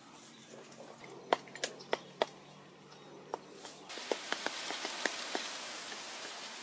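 Hand digging and scraping in dry soil: a few sharp knocks and clicks of tools and earth, then, about four seconds in, a steady hiss with more light clicks as the pit wall is scraped and shaped.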